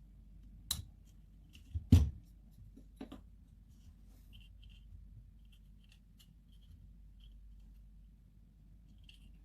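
A few sharp clicks and taps from handling a compact camera's small plastic body parts during disassembly, the loudest about two seconds in, followed by faint light ticks.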